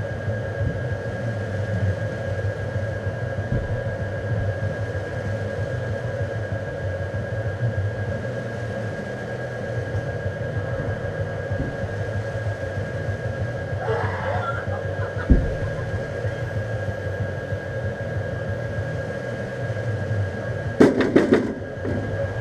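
Steady low droning hum with a thin high tone held over it. There is a single thump about two-thirds of the way through and a quick run of loud knocks near the end.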